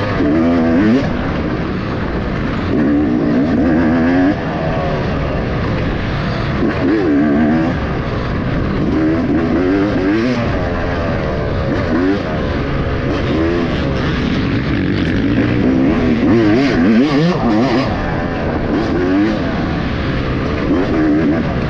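Off-road racing motorcycle engine running hard, its pitch rising and falling every second or two as the rider twists the throttle and eases off over rough trail, heard from the bike itself.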